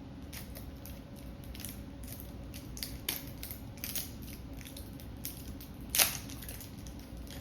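Plastic slime packaging crinkling and clicking irregularly as it is handled and opened, with one sharper crack about six seconds in.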